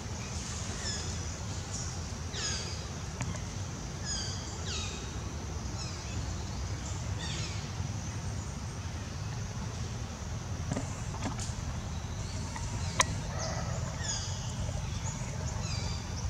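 Birds calling with short, falling chirps repeated every second or two, over a steady low rumble of wind on the microphone. A single sharp click comes about thirteen seconds in.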